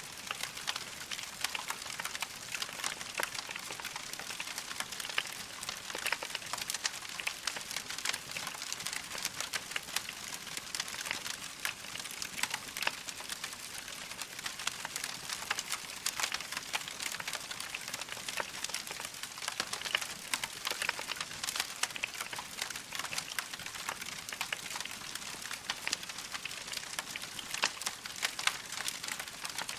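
Wood fire crackling in a fireplace: a dense, steady run of small pops and crackles over a soft hiss.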